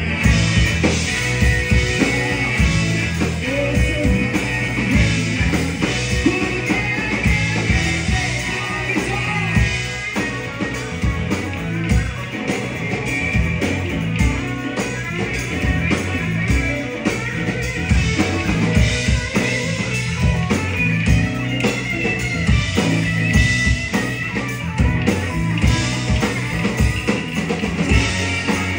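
Live rock band playing through a PA: a woman singing over drum kit, electric guitars and keyboard, with a steady rock beat.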